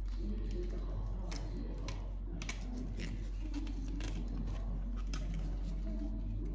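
Hands handling toys and packaging: a string of small, sharp clicks and light scraping of plastic, over a steady low hum.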